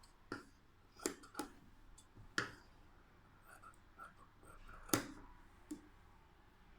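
Six or so sharp clicks and knocks at irregular intervals, the loudest a little before the five-second mark, over faint room noise.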